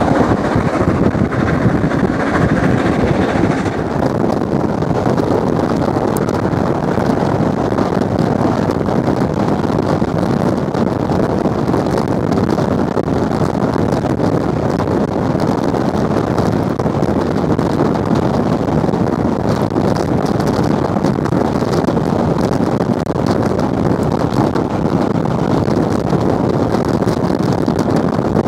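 Steady rushing noise of a steam-hauled train on the move, heard from inside a coach, with wind buffeting the microphone. The higher hiss eases slightly about four seconds in.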